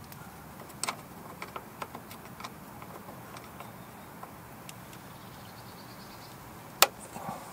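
Small plastic clicks and ticks as fingers pry at the clips holding the ABS wheel-speed sensor cable, with one sharp click near the end.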